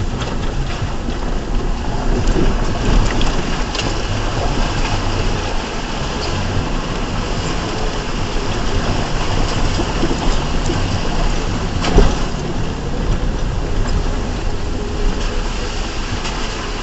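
A 2004 Ford Ranger 4x4 driving over a rough trail: the engine runs steadily under a constant rush of tyre and terrain noise, with scattered knocks and rattles from the truck's body and suspension and one sharper knock about twelve seconds in.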